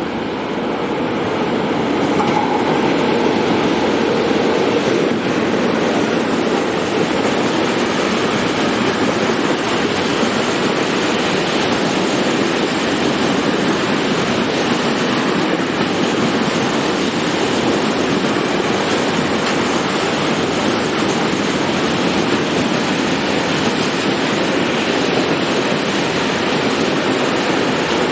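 A train passing close by: a steady noise of wheels running on the rails, growing louder over the first couple of seconds and then holding.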